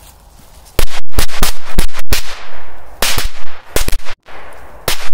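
A bundle of small Maxim "Little Pirate" firecrackers going off. Starting about a second in, there is a rapid, uneven string of about a dozen loud bangs lasting around four seconds.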